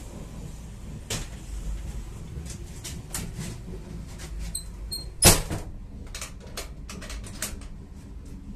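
Metal toilet door of an Indian Railways sleeper coach being shut and latched: one loud bang about five seconds in, among smaller clicks and knocks of the door and its sliding bolt. Under it runs the low rumble of the moving train.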